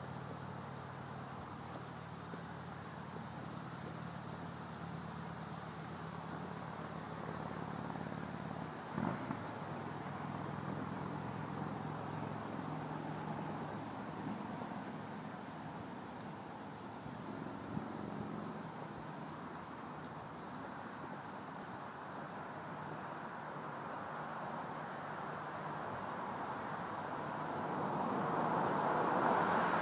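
Crickets chirping in a steady, evenly pulsed high trill over a low steady hum. In the last few seconds a road vehicle approaches, growing louder.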